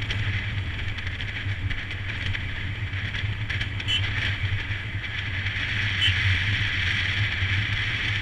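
Royal Enfield Himalayan motorcycle's single-cylinder engine running steadily at riding pace, under a constant hiss of wind and road noise.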